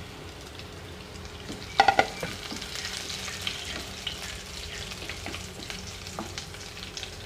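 Crushed garlic and dried red chillies sizzling in hot oil in a kadai while being stirred, with scattered crackles and pops. A short, louder clatter comes about two seconds in.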